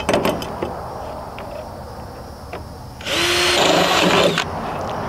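Ryobi 18V cordless drill running for about a second and a half, about three seconds in, boring a hole through the top of a metal solar-panel mounting bracket. A few light handling clicks come before it.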